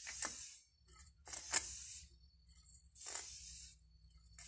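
Aerosol spray-paint can fired in short hissing bursts, four of them about a second apart, the last starting near the end, as thin white lines are sprayed.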